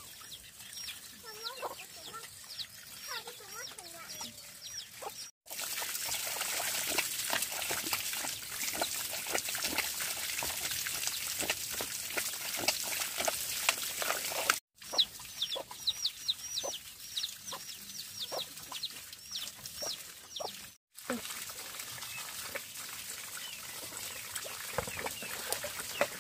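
Chickens: chicks peeping over and over in high chirps, with a hen clucking lower down. Between the runs of peeping comes a steady hiss crackling with many small clicks.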